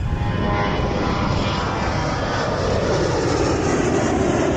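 A plane's engines passing close and loud, their tone gliding steadily lower in pitch as it goes by.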